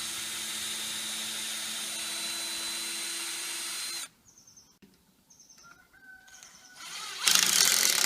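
Power drill running steadily at one speed for about four seconds while boring a pilot hole into wood, then stopping. A louder, rougher burst of noise follows near the end.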